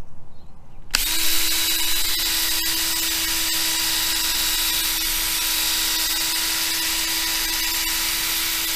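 Power drill spinning a buffing pad against a plastic motorcycle windscreen. It starts abruptly about a second in, then runs at a steady speed with a constant whine.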